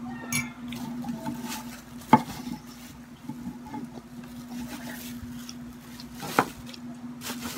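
Thin plastic bag crinkling as bread is handled in it, with two sharp clinks of tableware, about two seconds in and again near the end, over a steady low hum.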